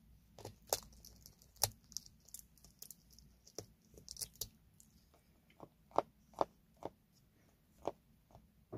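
Eurasian eagle-owl tearing at and eating a raw quail: an irregular run of sharp crunches, wet tearing and beak clicks on meat and bone, the loudest a few about six seconds in.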